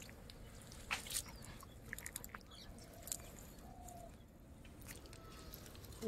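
Faint ticks and drips of small shrimp flicking about in a wet fishing net, with a few sharper clicks about a second in and a couple of faint short chirps midway.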